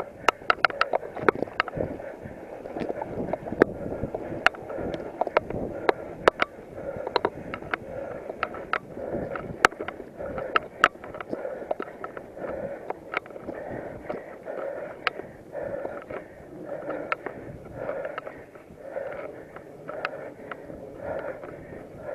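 Mountain bike rattling and clicking over a bumpy dirt singletrack, with many sharp knocks at uneven intervals. Underneath there is a faint pulsing about once a second.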